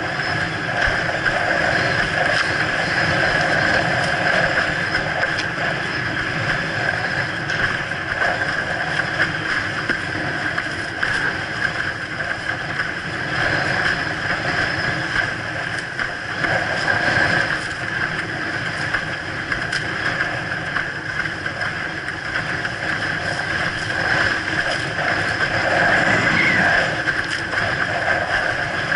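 Windsurf board planing fast over choppy water: a continuous, fluctuating rush of water and wind on a mast-mounted camera, with a steady high hum running through it.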